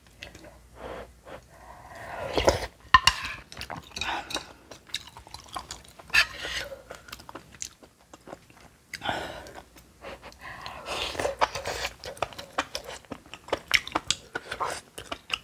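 A person chewing a mouthful of bibimbap with crunchy seasoned aged cucumber (nogak muchim): irregular crisp crunches, louder bursts now and then.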